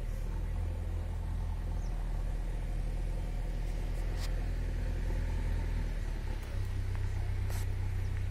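Diesel engine of a large mobile truck crane running steadily, a low hum whose note shifts slightly about six seconds in. Two faint clicks are heard over it.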